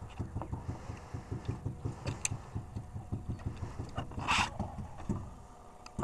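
Boat engine idling with a quick, even low throb. A brief splash from the hooked fish at the surface about four seconds in.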